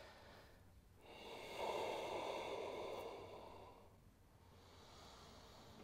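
A person breathing slowly and deeply, with one long, soft breath from about a second and a half in to nearly four seconds, and a fainter breath near the start.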